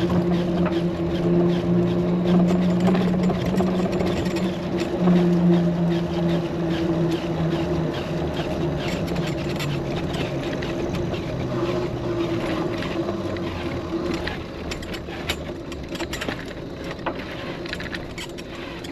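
A motor hums steadily and fades out about fourteen seconds in, with scattered clicks and crackling throughout.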